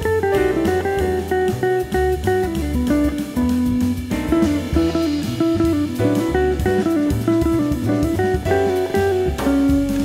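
Jazz electric guitar solo: quick runs of short single notes over a walking bass and drum kit.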